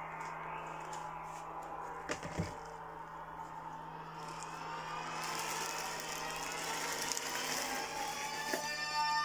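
Plastic packaging and bubble wrap rustling and crackling as they are handled, with two sharp cracks about two seconds in. Steady music-like tones come in near the end.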